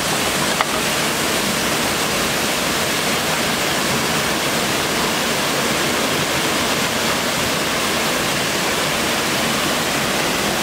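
Steady rush of river water over falls, a dense, even hiss.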